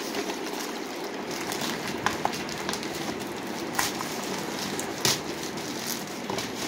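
Plastic courier mailer bag crinkling and rustling as it is handled and opened, with a few sharper crackles and snaps.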